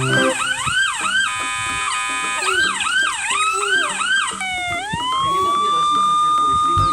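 Electronic police siren: a fast yelp of about three rising sweeps a second, a short steady stretch, more yelping, then a rise into one long held tone.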